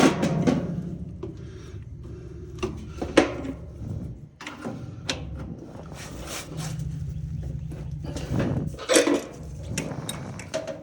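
Scattered knocks, clicks and scrapes of hands working metal parts inside a clothes dryer cabinet while the motor's retaining clip is pushed into place. A low steady hum runs under them.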